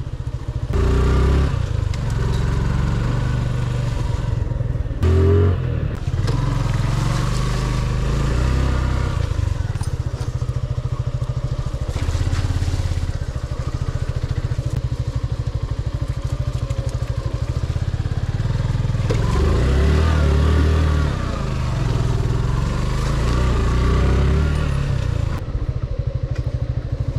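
Motorcycle engine running through a ride over a badly broken hill road, its note rising and falling a few times.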